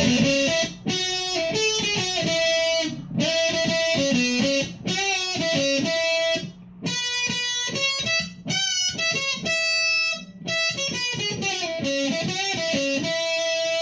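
Electric guitar, a Fender Player Telecaster with Seymour Duncan pickups on its middle pickup position, played through a VOX AC10 amp with a Behringer SF300 Super Fuzz pedal: fuzz-distorted lead phrases with a few short breaks and some long held notes.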